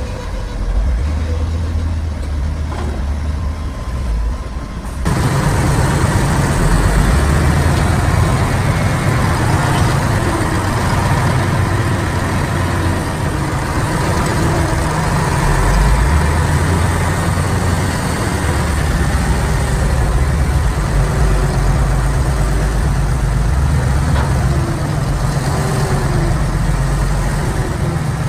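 A Shantui bulldozer's diesel engine running steadily. About five seconds in, the sound suddenly becomes louder and fuller and then holds steady.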